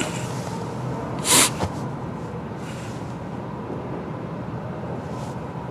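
Steady low rumble, with one short, loud burst of hissing noise about a second and a half in.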